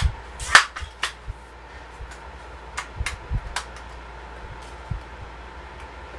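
Handling noise from a Crosman 362 pump air rifle: a sharp snap about half a second in, then scattered light clicks and knocks of the rifle being moved and worked.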